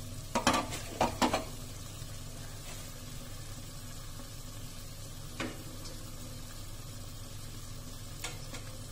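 Raw chicken pieces and a utensil handled in a large metal cooking pot: a few short knocks and scrapes, most of them in the first second and a half, with single ones about midway and near the end. Under them runs a steady low hum.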